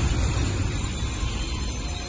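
Container freight train's wagons rolling past on the rails, a low rumble of wheels and running gear that fades steadily as the train draws away.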